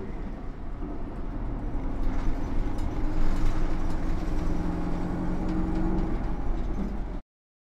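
Bus engine and road noise heard from inside the bus: a steady low rumble with an engine hum that grows louder about two seconds in. It cuts off suddenly near the end.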